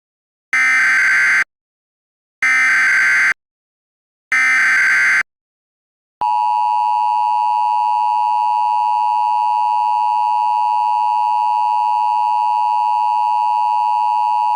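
Emergency Alert System SAME header: three short buzzy data bursts about two seconds apart. About six seconds in, the steady two-tone EAS attention signal starts and holds, announcing that an emergency alert message is about to be read.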